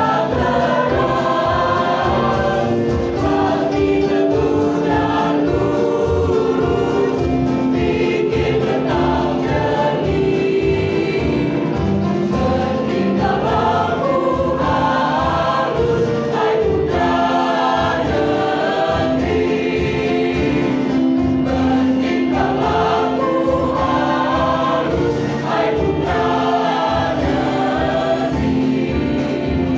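A mixed choir of high-school boys and girls singing together, holding long notes on several pitches at once.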